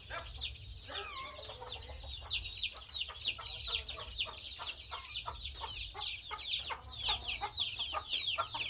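A brood of young chicks peeping: a dense, continuous run of short, high, falling cheeps, several a second.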